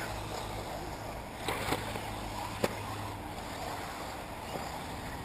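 Steady rushing outdoor noise of wind and 1/8-scale electric RC buggies running on an off-road track, with a few short clicks between about one and a half and three seconds in, the sharpest near the three-second mark.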